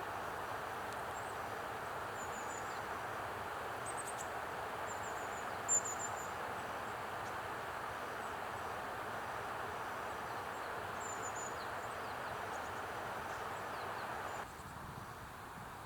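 A wild bird giving a few short, very high, thin calls a few seconds apart, the loudest about six seconds in, over a steady rushing background noise that drops away abruptly near the end.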